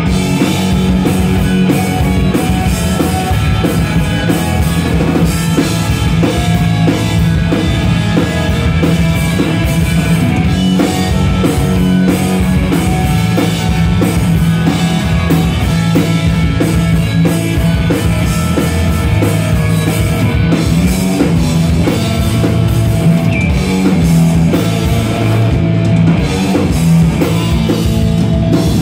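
Punk rock band playing live: electric guitars, bass guitar and a drum kit playing steadily and loudly throughout.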